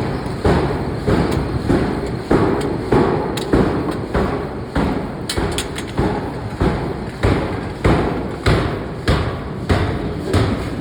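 Hammer blows striking hot steel in a forge, a steady train of heavy thuds at about one and a half blows a second.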